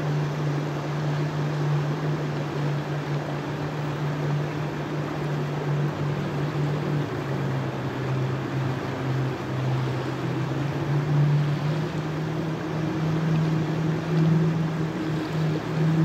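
River rapids rushing over rocks, with a steady low hum underneath that shifts in pitch a few times.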